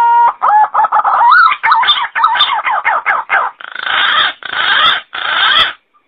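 Green pigeon (punai) calling: a quick string of whistled, warbling notes that rise and fall, followed by three harsh, rasping calls.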